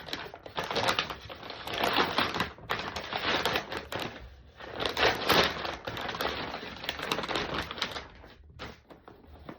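Packaging being opened and handled: crackling, crinkling and clicking in several bursts, loudest around two and five seconds in, quieter near the end.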